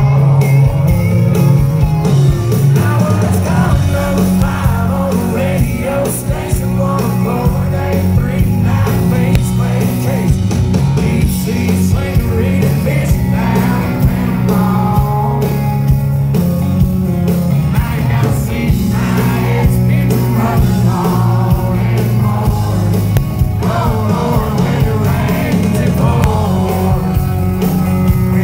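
Live country band playing at full volume, with a male lead singer and an acoustic guitar over a steady heavy bass and drums.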